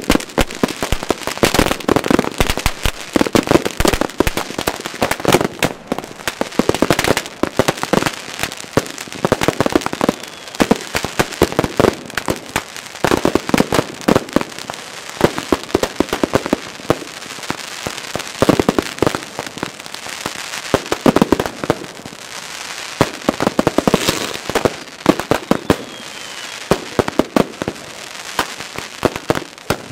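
Aerial fireworks going off in a dense barrage: rapid bangs, many a second, overlapping without a break.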